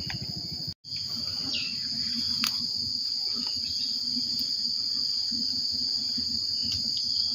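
Insects droning at one steady, high pitch, with a low rough rumble underneath.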